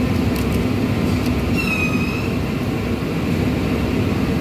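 Steady loud drone of workshop machinery, with a brief high squeak sliding down in pitch about a second and a half in.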